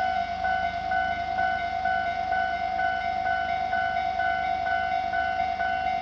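Japanese level crossing's electronic warning bell ringing in an even rhythm of about two strikes a second, warning that a train is approaching.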